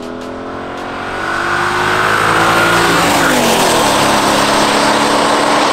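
Audi A6 C6 with the 4.2-litre V8 accelerating toward the listener, its engine note rising in pitch, then dropping about three seconds in and holding steady, with loud tyre hiss on the wet road.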